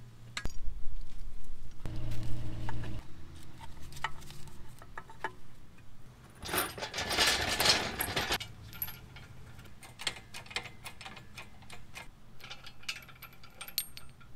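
Metal hardware clinking and jangling, with knocks and scrapes, as tools and steel lifting shackles are handled around a truck's engine bay. There is a low rumble a few seconds in and a rush of noise lasting about two seconds around the middle.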